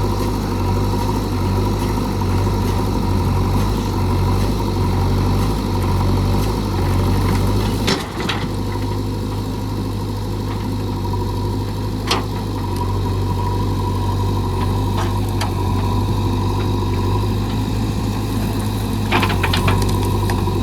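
JCB 3DX backhoe loader's diesel engine running steadily, with a few sharp knocks: one about eight seconds in, one about twelve seconds in, and several near the end.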